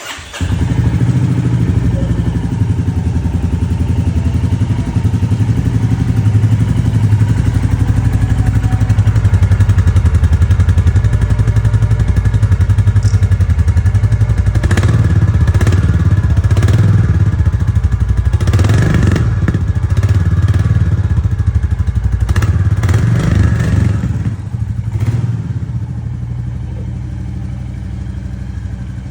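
Royal Enfield Bullet Standard 350's single-cylinder engine idling through its exhaust with a steady low thump. It is blipped up several times about halfway through, then drops back to a quieter idle near the end. The bike has about 150 km on it, so it is still new and running in.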